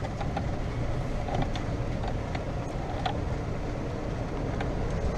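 Golf cart driving along: a steady low rumble with scattered light clicks and rattles.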